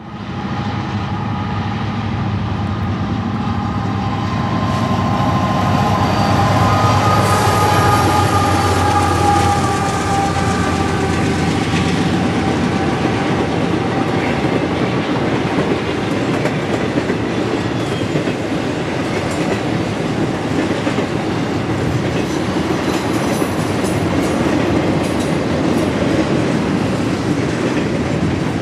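Train passing close by. For the first ten seconds or so the locomotives' diesel engines drone with a steady tone. Then the cars roll past with continuous wheel clatter on the rails.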